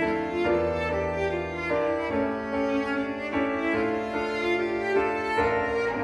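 Background music: bowed strings, violin and cello, playing held notes with vibrato that change about every second, over piano.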